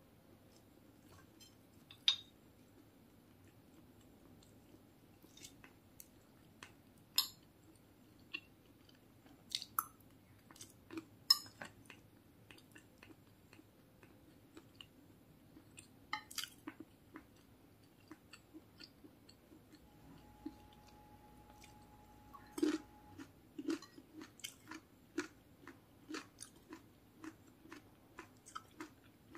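A person chewing mouthfuls of fried rice close to the microphone, with scattered sharp clicks of a metal spoon scooping against a plate. In the second half the chewing falls into a steady rhythm, a little more than one chew a second.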